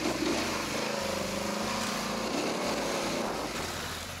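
Quad ATV engine running under throttle, its pitch held steady for about two seconds, then wavering up and down before easing off near the end.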